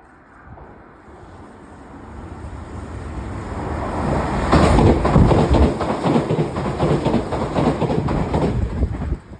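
Tobu 80050-series electric train passing through the station at speed without stopping. The approach builds for about four seconds, then comes about five seconds of loud rushing with wheels clattering over the rails, which drops away suddenly near the end.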